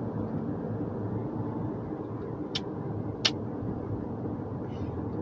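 Steady road and tyre rumble heard inside a hybrid car's cabin while driving through a long tunnel; the car is running on electric power, so there is little engine sound. Two short sharp clicks come about two and a half and three and a quarter seconds in.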